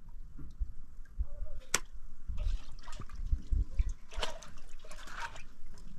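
Water splashing and pouring in two short spells, with a sharp knock a little before two seconds in.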